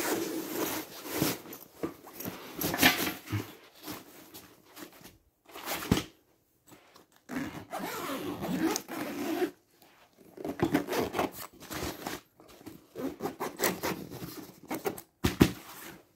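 Zippers on an EVERKI laptop trolley bag being drawn open and shut in a series of strokes a second or two long, with fabric rustling and a couple of sharp knocks as the bag is handled.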